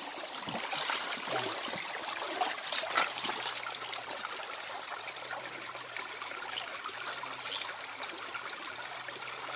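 Shallow stream running over rocks, a steady rush of water, with a few faint splashes in the first few seconds.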